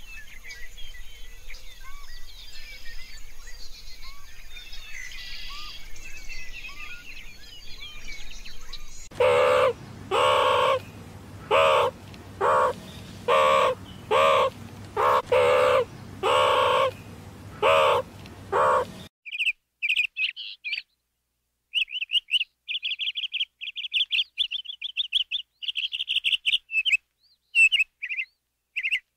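Birds calling in three spliced clips. First comes a busy chorus of small high chirps. Then about a dozen loud calls repeat roughly once a second, and after an abrupt cut come fast, high trilling calls broken by short pauses.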